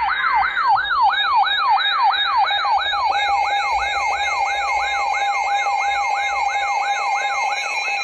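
Electronic siren alert tone of an emergency alert broadcast, sweeping quickly up and down about three times a second. A steady tone joins it about three seconds in.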